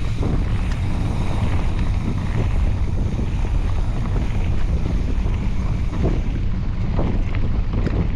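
Wind buffeting the microphone of a camera riding on a moving mountain bike: a steady low rumble, with a few brief knocks from the bike near the end.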